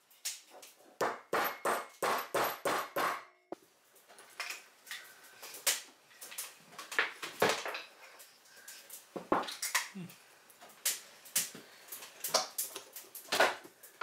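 Small hammer tapping a metal nail punch into the centre disc of a lawn bowl: a quick run of about eight sharp taps, roughly four a second. From about three and a half seconds in it gives way to irregular clicks and scrapes as the metal point picks and pries at the disc.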